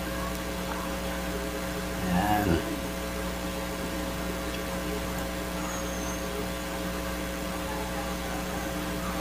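Steady electrical hum with several fixed pitches.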